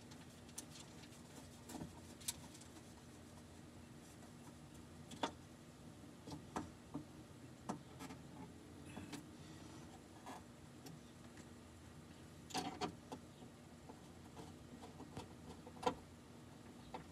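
Faint scattered clicks and taps of a screwdriver and screws against the sheet-metal inner panel of a car door, while a power window motor is screwed into place.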